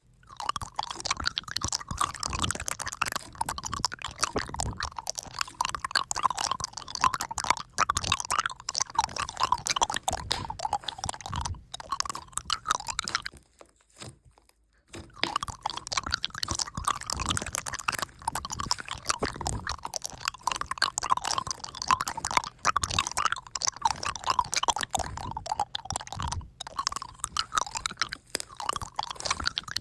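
Dense, rapid crackling and crunching clicks, continuous except for a pause of about a second and a half around halfway.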